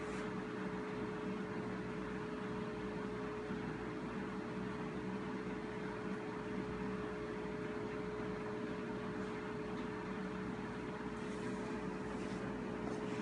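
Steady electrical hum: one constant mid-pitched tone over an even hiss. A few faint clicks come near the end.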